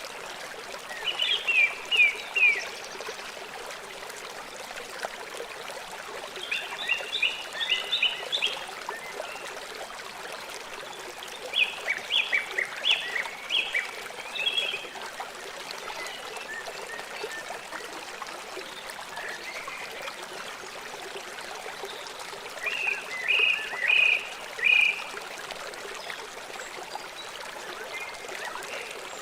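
A stream running and trickling steadily. Four times, a burst of quick, high chirping notes lasting one to three seconds rises above the water.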